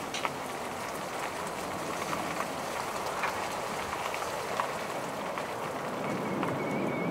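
Steady rushing of storm wind and rain, with scattered sharp taps of raindrops.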